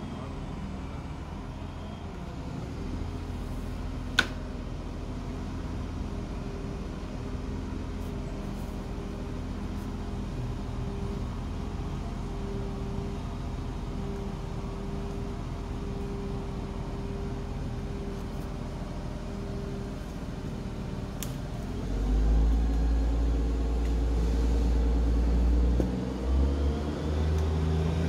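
Crane engine running steadily while a log section hangs from its cable, then revving up louder for the last several seconds. A single sharp click about four seconds in.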